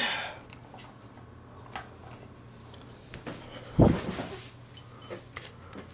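Plastic action figure being handled and posed: a few faint clicks of its parts, and one dull thump a little after the middle.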